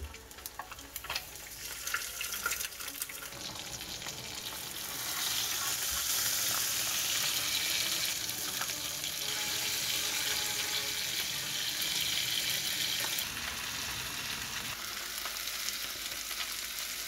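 Whole sea bream and small yellow croakers frying on a cast-iron griddle pan, a steady sizzle that swells about five seconds in and holds. A few light clicks and taps in the first few seconds as the fish are laid on the pan.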